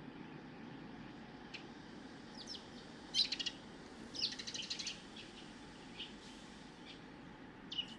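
Oriental magpie scolding with its harsh rattling chatter: two rapid bursts about three and four seconds in, with a few short single calls around them. It is an alarm call against stray cats that threaten the magpies' young in the breeding season.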